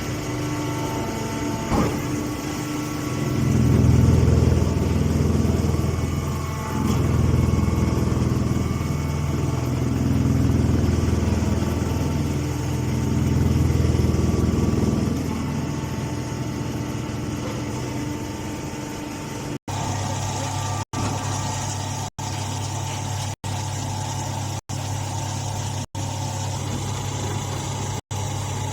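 Leaf baling machine's motor running with a steady hum that swells louder under load four times, in slow cycles of a few seconds each. In the last stretch it runs evenly, the sound cutting out briefly about every second and a quarter.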